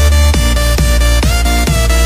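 Electronic dance music with a deep bass and a steady beat of about three drum hits a second.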